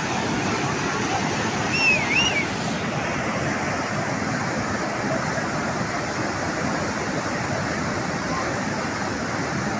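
Flash-flood water rushing steadily in a swollen torrent. About two seconds in, a brief high wavering call cuts through it.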